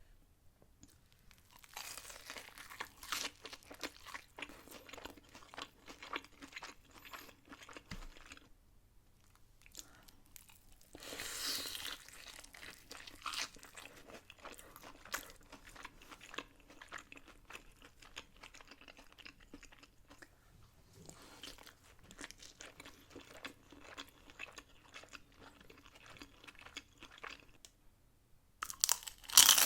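Close-miked chewing of crunchy food, with crisp crackling crunches in stretches and short pauses, and a louder crunch just before the end.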